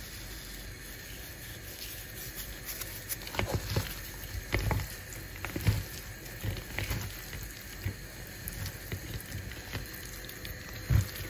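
Wet squelching and soft patter of raw squid, mussels and shrimp being tossed by a gloved hand in a plastic bowl. The sound comes in irregular bursts from about three seconds in.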